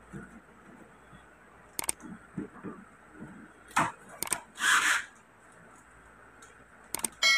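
Sharp clicks and knocks as the plastic washing-machine tub and its parts are handled, with a short scraping rasp about two-thirds of the way through. A ringing metal clang near the end.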